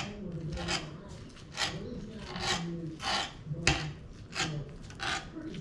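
Cooked beef tongue being shredded with a metal utensil on a wooden cutting board: about eight short scrapes in an uneven rhythm as the utensil rakes through the meat and across the board.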